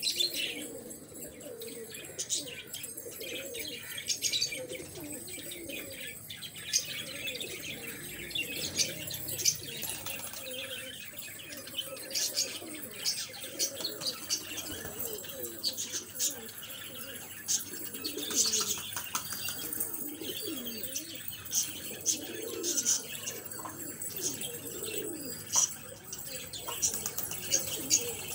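Flock of domestic pigeons cooing continuously, with many short high chirps and clicks scattered throughout.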